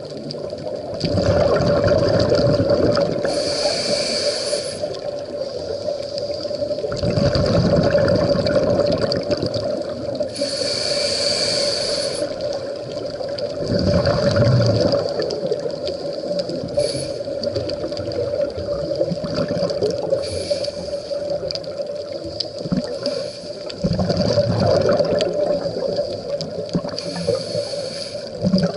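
Scuba diver breathing through a regulator underwater: a hiss on each inhale and a rumbling gush of exhaled bubbles, about four breaths in a slow, even cycle, over a steady hum.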